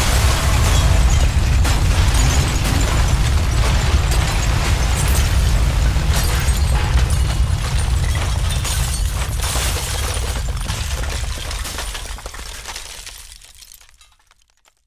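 Aftermath of a house explosion sound effect: a heavy low rumble with many crashes of breaking and falling debris and shattering glass. It fades away over the last two or three seconds.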